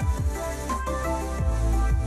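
Electronic background music with a deep bass line and kick drum hits.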